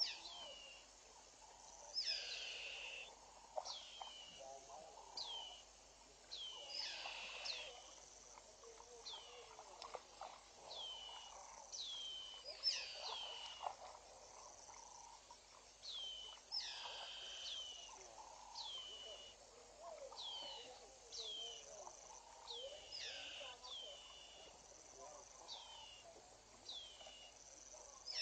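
Wild birds calling in bush: many high, falling whistled notes repeated about once a second, over softer, lower chattering calls.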